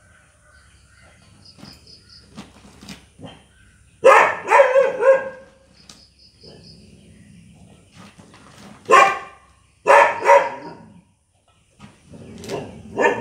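A dog barking in short runs: a string of barks about four seconds in, then single barks and pairs later on, the last near the end.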